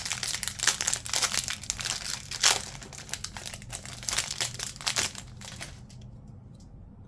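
A trading card pack wrapper being crinkled and torn open by hand, a busy crackling rustle that dies away about six seconds in.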